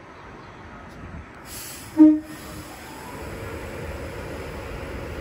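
A short, single horn blast from a Class 390 Pendolino electric train about two seconds in, sounded as it departs. Afterwards the train's rumble slowly builds as it pulls away.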